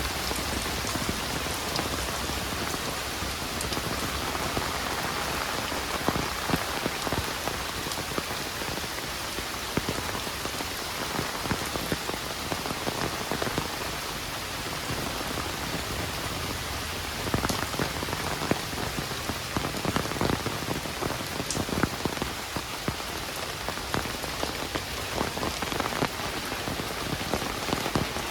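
Heavy rain falling steadily, with many individual drops striking close by as sharp ticks over the even hiss of the downpour.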